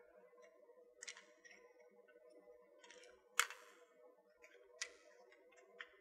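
Faint plastic clicks and taps from a Digitek DT-2843R multimeter's circuit board and plastic case as the board is worked loose. There are about four separate clicks; the loudest comes about three and a half seconds in.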